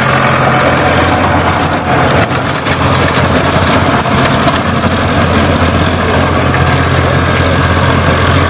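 Eicher 551 tractor's three-cylinder diesel engine running steadily under load, pulling a tillage implement lowered fully into dry soil.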